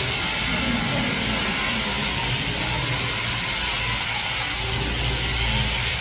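Electric sheep shears running steadily as a sheep's fleece is shorn.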